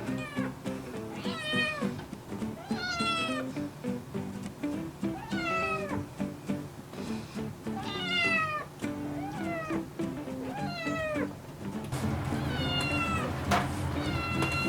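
A kitten meowing insistently for food: a string of about nine meows, each rising and then falling in pitch, one to three seconds apart.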